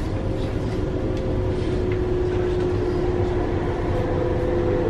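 Interior running noise of an electric passenger train: a steady low rumble with a steady whine over it.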